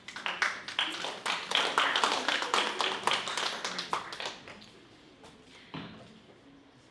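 Applause from a small audience: quick, dense hand claps that die away about four seconds in.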